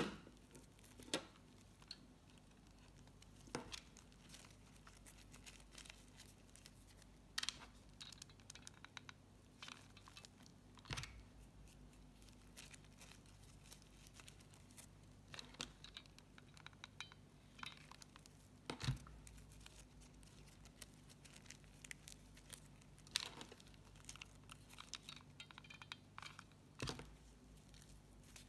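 Faint rustling and handling of satin ribbon as the ribbon leaves are pressed onto a satin-ribbon rosebud by hand, with scattered soft clicks every few seconds over a low hum.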